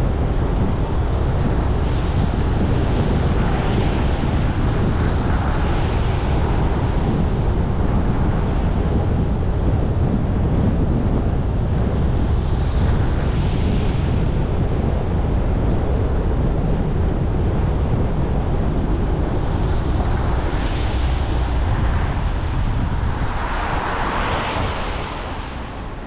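Wet-street traffic noise in the rain: a steady low rumble of road and wind noise, with the hiss of tyres on wet pavement swelling several times as vehicles pass.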